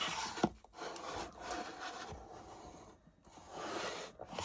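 Rubbing and scraping on the wooden cigar box in a few uneven strokes, with a sharp click about half a second in.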